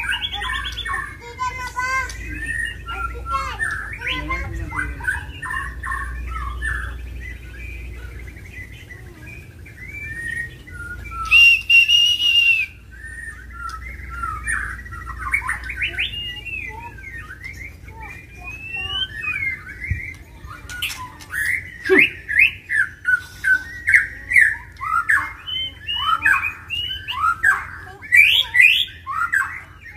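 Caged white-rumped shamas singing: a varied stream of whistles and chattering chirps, with a harsh, loud call about eleven seconds in. In the last several seconds the song turns into a series of loud repeated notes, about two a second.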